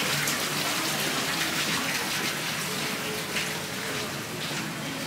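Steady rush and splash of running water.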